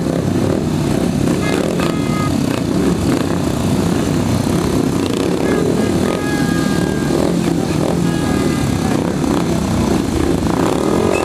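Several speedway motorcycles' 500 cc single-cylinder methanol engines running together at the start line, a loud, steady engine sound.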